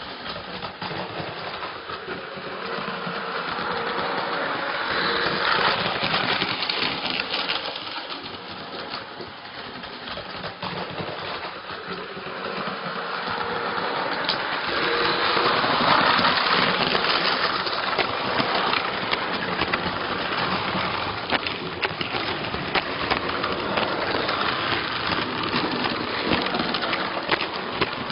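Model train running on the layout's track: a rattling clatter of wheels and small clicks on the rails, swelling and fading twice.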